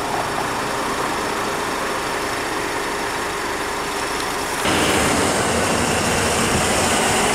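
Steady road and engine noise of a moving car, heard from inside the vehicle; a little past halfway it turns suddenly louder and hissier.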